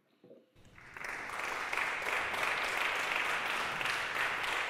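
Audience applauding: clapping starts about half a second in, builds over the next second and then holds steady.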